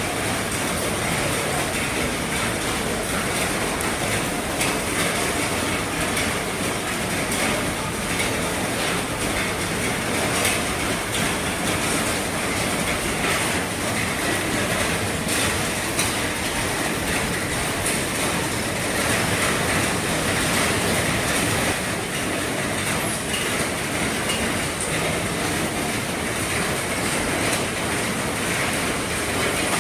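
Heavy rain pattering steadily on an RV's roof, a dense even clatter of drops.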